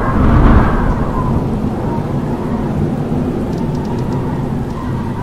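Howling wind: a strong gust swells and peaks about half a second in, then settles to a steady low rush with a faint whistle.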